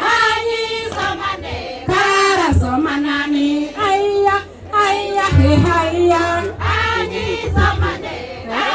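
A group of women singing together in a traditional song, in short phrases with brief breaks between them.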